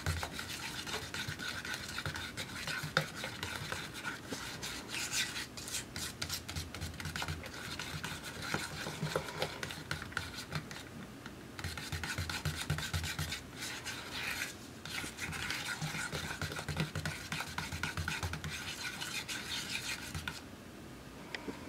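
Metal palette knife stirring and scraping thick paint in a small plastic cup: a steady run of short scrapes and soft knocks against the cup, blending added blue into purple paint. It stops shortly before the end.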